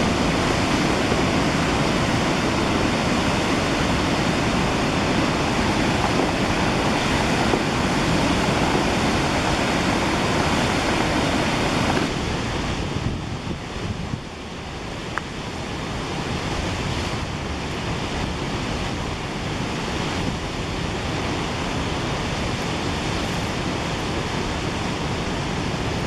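Steady rush of a waterfall, an even wash of falling water. About halfway through it drops a little in level and sounds thinner.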